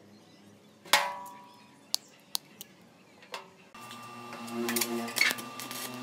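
Steel rods bundled with zip ties being handled on a steel work surface: a ringing metallic clank about a second in, then a few light clicks. A steady hum with held tones comes in a little past the middle.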